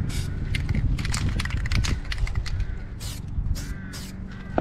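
Aerosol can of red brake-caliper spray paint being worked for a coat: a run of short, sharp strokes, about three a second, starting about halfway through, over a steady low hum.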